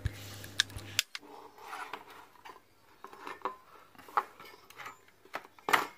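Light metallic clicks and scraping as a screwdriver and an aluminium heatsink are handled on an amplifier circuit board, with one sharper clack near the end.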